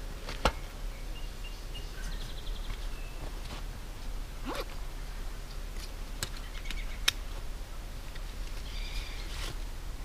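Backpack and camp gear being handled and packed: rustling, a short zipper-like stroke midway and a few sharp clicks. Faint bird chirps sound in the background.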